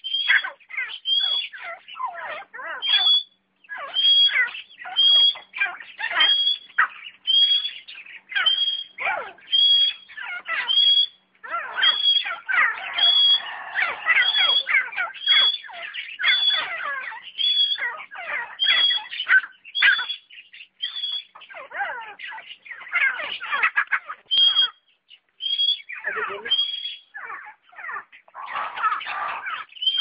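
Caged teetar (francolin partridge) calling over and over in a fast series, a high rising note about every two-thirds of a second, with other birds' calls mixed underneath; the series breaks off after about twenty seconds and resumes for a few calls.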